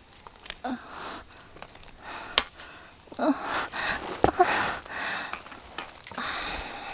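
Hard breathing of a climber hauling herself up a steep root-covered slope, several breaths a second or so apart, with a few sharp clicks and knocks from the gloved hand and camera against the roots.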